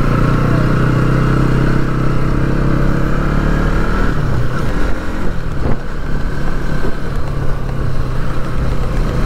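Bajaj Pulsar NS200's single-cylinder engine running while the motorcycle is ridden, a steady note that drops away about four seconds in.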